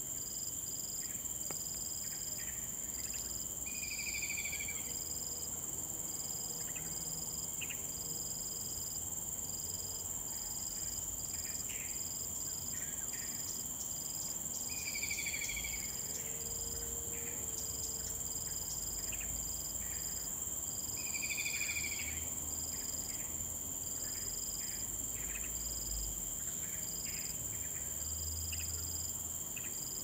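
Crickets and other insects trilling in a steady high-pitched drone, one of them in a regular pulsing chirp. A bird calls a short trilled phrase three times, about 4, 15 and 21 seconds in, among scattered faint bird chirps.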